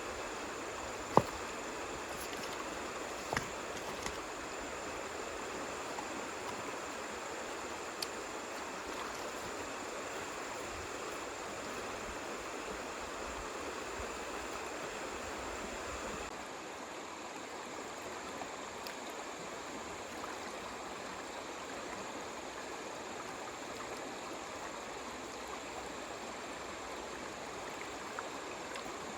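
Steady rush of running water, with two sharp knocks in the first few seconds.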